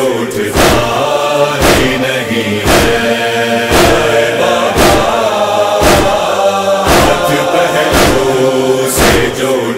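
A chorus of voices chanting the refrain of a Shia nauha lament, held notes in several pitches, over a steady matam beat of hands striking chests about once a second.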